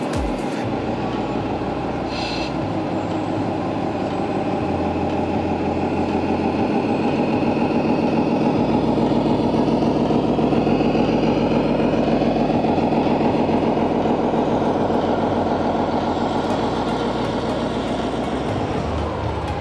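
RC model Scania truck's engine sound module playing a diesel engine running steadily. The engine note rises slowly and gets louder towards the middle, then eases off near the end.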